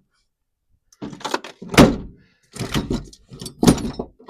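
A run of knocks, thunks and clatters of hard objects being picked up and set down, starting about a second in, as when rummaging through tools.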